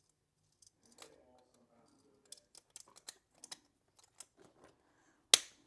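Small 3D-printed plastic gear pieces clicking and tapping as they are handled and fitted into the core, with one sharp, loud click about five seconds in as a piece goes into place.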